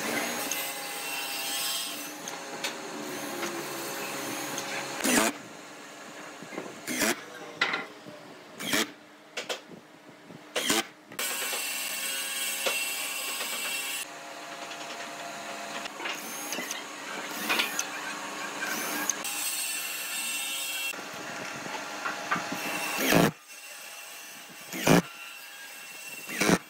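Cordless drill running in several stretches as it bores into pine boards, with sharp knocks in between.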